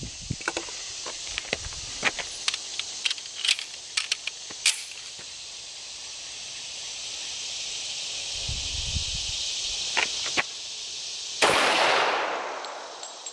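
Sharp metallic clicks from handling a Ruger SR1911 .45 ACP pistol, then a single loud shot from it near the end, ringing out and dying away over about a second. A steady high insect hiss runs underneath.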